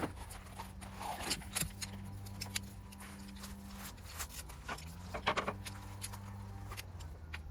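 Irregular clicks and clattering of objects being handled, over a steady low hum that shifts slightly in pitch around the middle.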